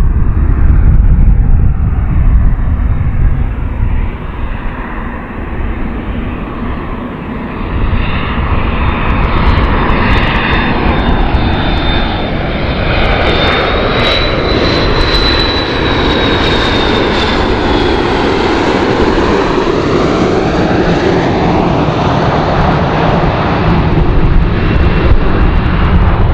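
Jet airliner on landing approach, the twin rear-mounted turbofans of a McDonnell Douglas MD-80-series, running with a steady loud roar as it passes close. A high whine rises slightly and then falls about halfway through.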